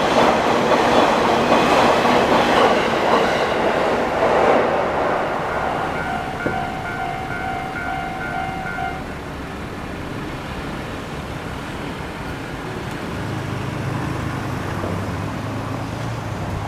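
A JR Nanbu Line train runs over a level crossing, wheels clattering on the rails, and fades away after about four seconds. The crossing's electronic warning bell then rings on alone in quick dings, about two a second, and stops around nine seconds in; a low engine hum comes in near the end.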